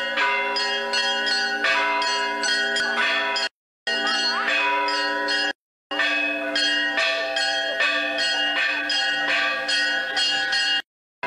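Church bells pealing: several bells of different pitches struck in quick succession, a few strikes a second, ringing on over one another. The sound cuts out to silence briefly three times: about a third of the way in, about halfway, and near the end.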